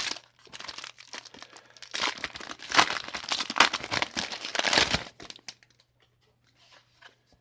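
Foil booster-pack wrapper crinkling and tearing as a pack of trading cards is ripped open and handled. It is loudest from about two seconds in and fades to faint rustles after about five seconds.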